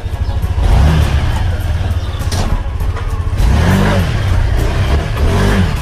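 Yamaha Aerox 155 V2 scooter's single-cylinder engine running as it pulls off, revving up and back down twice.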